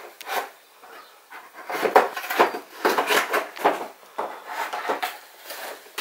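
A cardboard box is torn open by hand, in a series of irregular rips and scrapes of cardboard.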